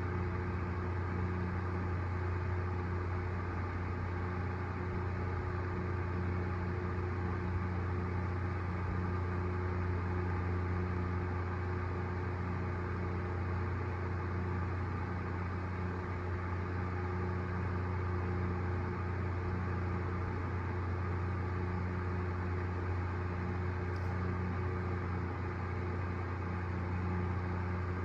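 A steady, unbroken low mechanical hum, like a motor or engine running, with no farts or burps heard over it.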